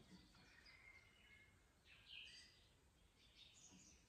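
Faint birdsong: several short chirps and whistled notes over a quiet background.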